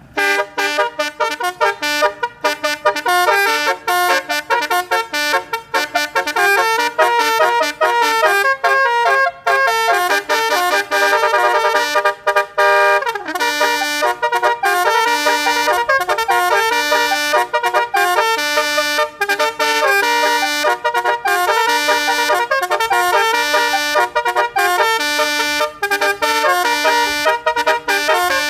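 Twelve-note basuri electronic musical vehicle horn playing a fast, continuous tune of short horn notes.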